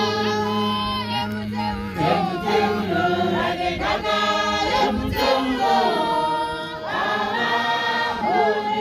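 A church congregation singing a hymn together, mostly women's voices, unaccompanied and without any drum or instrument beat.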